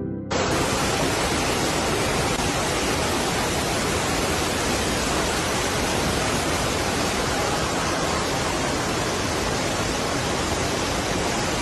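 Floodwater rushing, a steady, even rush of water with no breaks.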